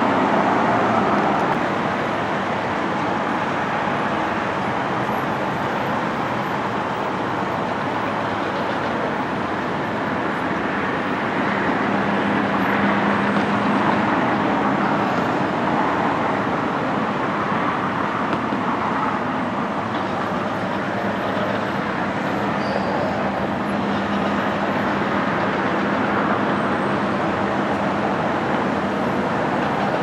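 Steady outdoor din of distant vehicle traffic, with a faint low engine hum coming and going.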